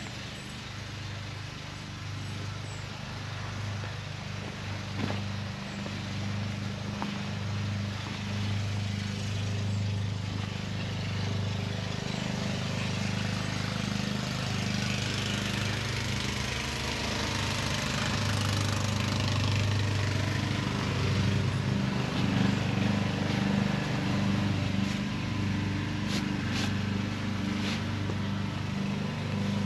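A small engine running steadily, its low hum slowly growing louder.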